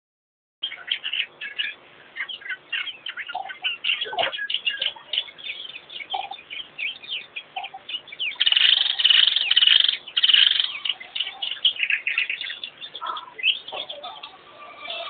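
Many small birds chirping and twittering in a dense chorus, with short sharp notes packed closely together. The chatter swells loudest for about two seconds a little past the middle, and the sound starts after a brief gap.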